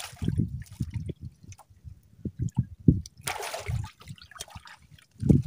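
Water splashing and dripping, with many short low knocks of handling; a louder rush of splashing lasts about half a second, some three seconds in.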